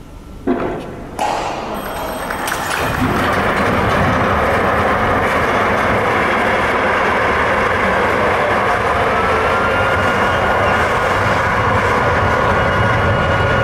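Ship launch: two sharp bangs as the launch is set off, then a loud, steady rumble that builds over a few seconds as the ship's steel hull slides down the launching ways.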